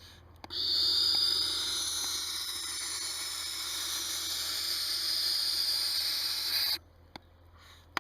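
Barn owl hissing: one long, harsh, breathy hiss lasting about six seconds that cuts off abruptly, with a faint click just before it starts and another after it stops.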